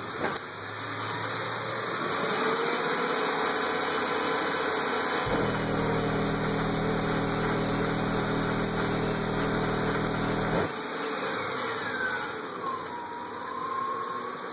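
Two 12-inch Fi SSD car subwoofers playing a 40 Hz bass burp, a steady low tone that starts abruptly about five seconds in and cuts off about five seconds later, reaching 139.5 dB on the SPL meter.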